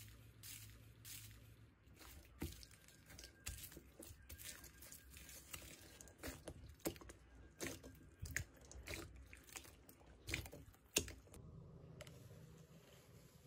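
Slime being squished and poked by hand, giving a run of soft crackles and small pops. The crackling stops near the end.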